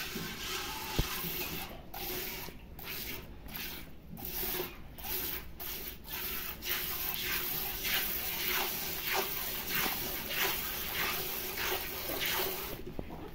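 Cow being milked by hand into a steel bucket: rhythmic squirts of milk hitting the milk in the pail, about two squirts a second.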